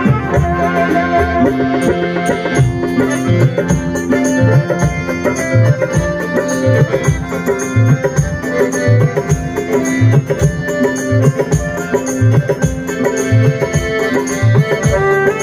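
Loud music with a steady percussion beat under sustained melodic notes, in the manner of South Asian folk music with tabla-like drumming.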